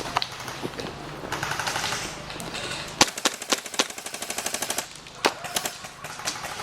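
Airsoft guns firing on full auto: a short rattling burst, then a longer rapid string of BB shots about three seconds in, followed by a few single shots.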